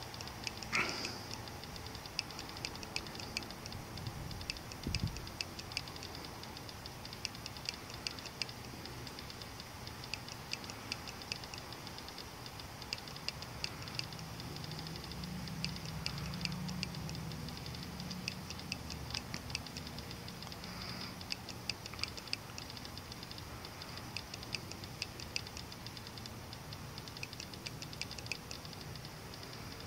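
Night insects calling: a steady high-pitched buzz with rapid ticking pulses in repeated bursts. A louder click comes about a second in, and a low thump about five seconds in.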